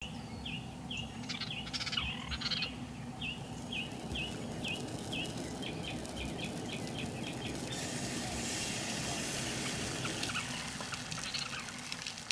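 Songbirds singing: one repeats a short down-slurred note about twice a second, running into a quicker trill. From about eight seconds in, a sausage sizzles in a cast-iron skillet on a camp stove, all over a steady low rumble.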